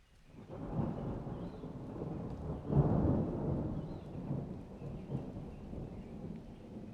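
Dry thunder: a rolling rumble that swells about half a second in, peaks in a sharp crack about three seconds in, then rolls on and slowly dies away.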